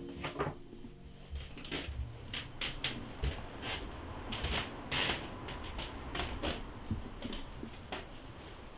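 Handling noises: a string of soft, irregular knocks and rustles, about one every half second to a second, as a person moves about with a backpack on. Near the end a kitchen wall cupboard door is opened.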